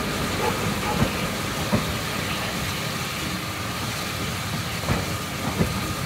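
Steam-hauled passenger coaches rolling slowly through the station: a steady rumble with a few sharp clunks of the wheels over the rail joints.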